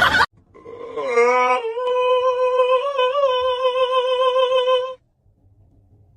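A single voice holding one long, steady note, wavering in pitch at first and then held level for about three seconds before stopping suddenly.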